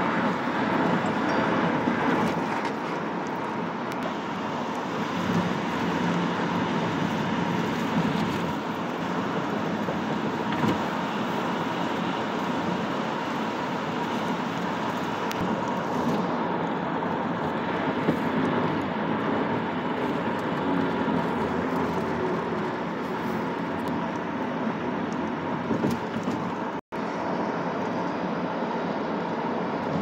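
Road noise heard inside a moving car's cabin on a freeway: a steady rush of tyres and wind with a faint steady tone running through it. The sound cuts out for an instant a few seconds before the end.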